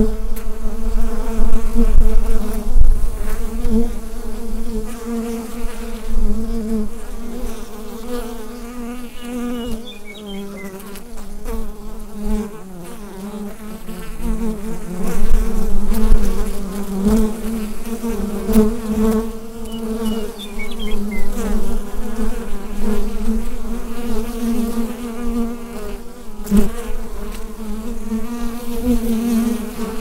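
A honeybee hive buzzing: many bees' wings making one dense, steady hum at a low pitch, which swells and eases in loudness every few seconds.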